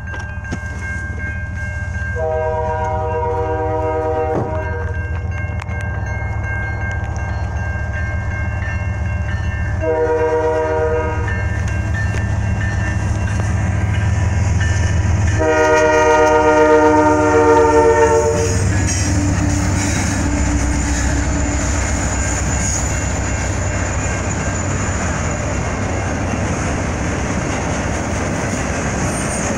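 Train sounding its horn three times, the middle blast shorter, as it approaches and passes, followed by the steady rumble and clickety-clack of the rail cars going by.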